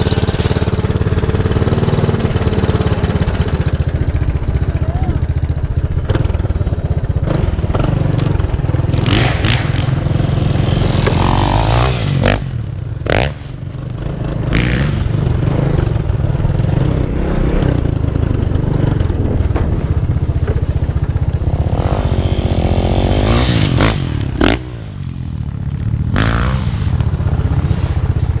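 Motorcycle engines running and revving, the sound dipping briefly twice.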